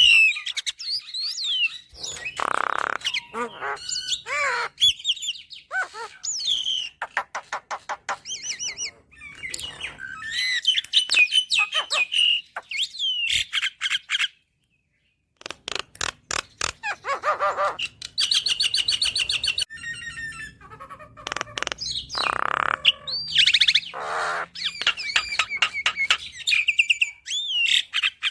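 Javan myna (jalak kebo) singing a long, varied song of whistled glides, sharp chirps and fast rattling runs of clicks. The song breaks off completely for about a second midway, then resumes.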